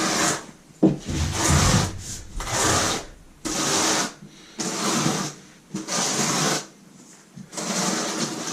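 Steel trowel scraping through freshly mixed thinset mortar in repeated strokes, about one a second, with a longer pause near seven seconds in.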